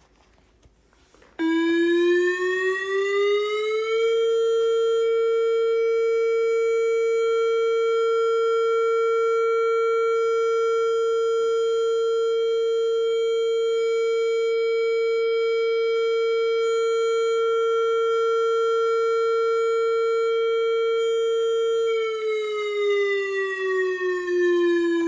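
Whelen Vortex tornado siren alert tone played from a recording through a small Bluetooth speaker inside a Lego siren model. About a second in it winds up in pitch for a few seconds, holds one long steady wail, then winds down again near the end.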